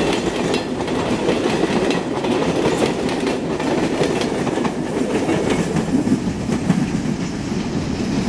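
Freight train's empty stake flatcars rolling past, steel wheels clicking over the rail joints in a clickety-clack above a steady rumble.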